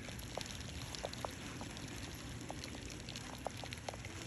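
Faint, steady outdoor background noise with scattered short, light ticks.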